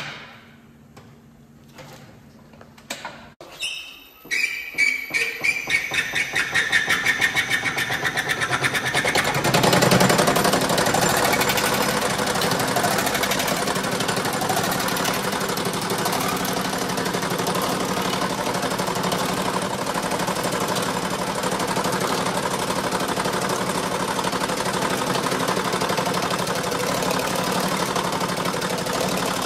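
Sheet-metal power hammer starting up: about four seconds in, single strokes begin, speed up, and merge into a continuous rapid hammering as a curved galvanized steel panel is worked between its dies.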